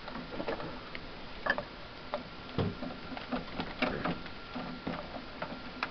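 Irregular light clicks and taps of plastic cable connectors and housing parts being handled and unplugged inside an iMac G3.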